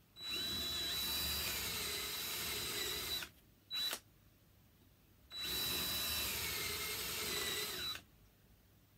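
Cordless drill boring holes in a wooden board: two runs of about three seconds each with a steady motor whine, with a brief squeeze of the trigger between them.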